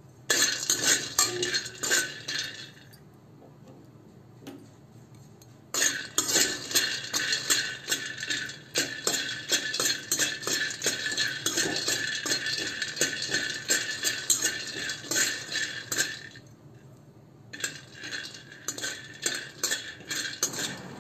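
A steel spoon stirring raw peanuts in a stainless steel pan as they roast: rapid clinking and scraping of spoon and peanuts against the metal. It comes in three spells, with a pause of a few seconds after the first and a short one near the end.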